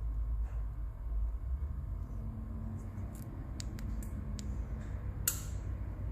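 Small keypad buttons on an Ametek XP2i digital test gauge being pressed one after another during a key check: a few light clicks starting about three seconds in and a sharper click a little after five seconds. A low steady rumble runs underneath.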